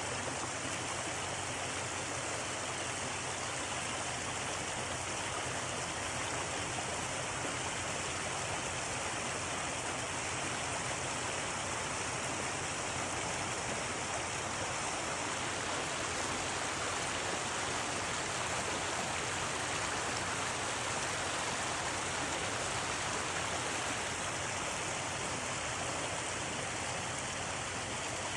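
Flowing stream water rushing steadily, an unbroken even wash with no distinct splashes.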